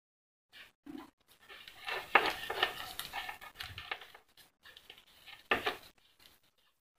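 Insulated transformer lead wires and yellow tape being handled by hand: irregular rustling and small clicks. They are busiest between about two and four seconds in, with one brief louder rustle near five and a half seconds.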